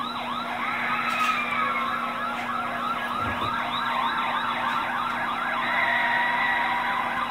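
Recorded police siren played back through a speaker, sounding in a fast yelp with rapid up-and-down sweeps about four times a second.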